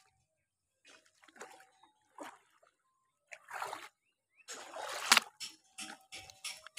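Shallow muddy water splashing and sloshing as it is stirred by hand while working a mesh fish trap and bucket, in several separate splashes that thicken in the second half, the loudest about five seconds in.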